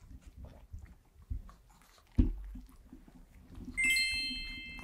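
A Chihuahua shuffling on a fleece blanket and sofa, with low rustling and one sharp thump about two seconds in. Near the end a bright sparkle chime sound effect rings out and slowly fades.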